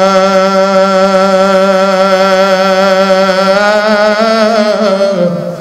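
A man's voice holding one long, wavering chanted note, a drawn-out call of "Maula" to God. The pitch lifts slightly, then falls and breaks off near the end.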